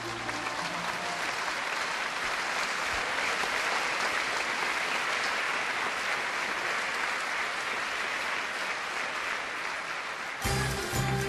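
Audience applauding steadily. About a second before the end the applause is cut off and music starts abruptly.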